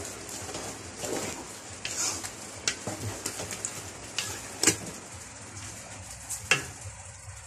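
Wooden spoon stirring thick tomato sauce with ground meat in an aluminium stockpot: wet scraping and mixing, with a few sharp knocks of the spoon against the pot, the loudest near the middle.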